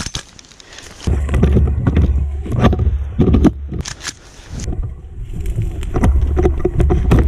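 Deep rumbling handling noise and rustling from a player moving through tall dry grass with gear rubbing against a body-worn action camera, with a few sharp clicks scattered through it.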